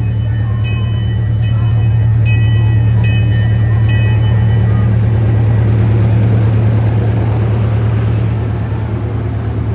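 Small park steam locomotive drawing slowly past at close range. Its bell rings repeatedly and stops about four seconds in, over a steady low mechanical hum that grows louder as the engine comes alongside.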